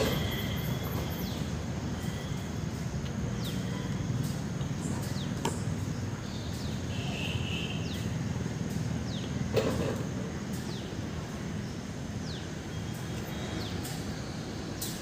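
Steady low outdoor rumble with short falling bird chirps scattered throughout, and a few sharp knocks, the loudest about halfway through.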